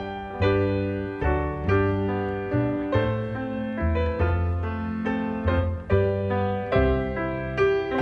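Background music: a waltz played on piano, single notes and chords struck about once or twice a second and left to fade.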